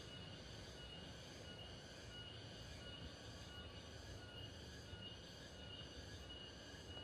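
Faint outdoor ambience: a thin, steady high-pitched insect trill over a low hiss.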